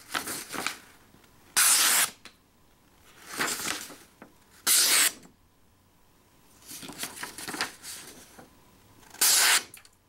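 Civivi Crit folding knife's full flat ground Nitro-V steel blade slicing through a sheet of printer paper in a sharpness test, three clean cuts of about half a second each, the freshly touched-up edge passing through with a steady hiss. Between the cuts the paper crinkles and rustles as it is handled.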